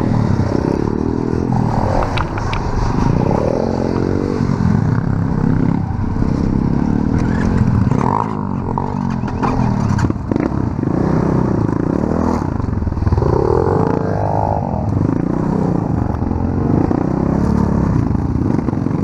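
Small off-road engine, a pit bike or quad bike, running and revving up and down under riding load, with clatter and scraping from the machine over rough ground.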